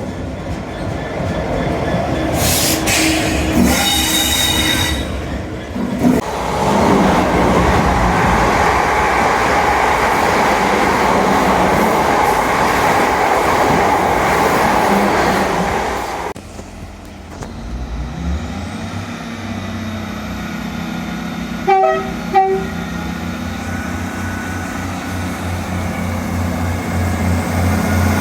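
Train horn sounding, then a train running past loudly on the rails. After that a train's engine runs with a low steady hum and a rising whine, and the horn gives two short toots about three-quarters of the way in.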